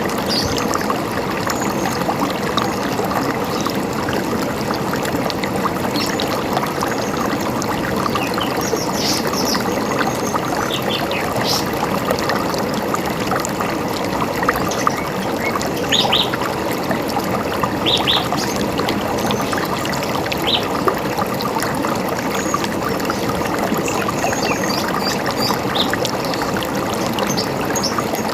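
River water running and splashing steadily, with scattered short bird chirps over it, a few standing out about 16 and 18 seconds in.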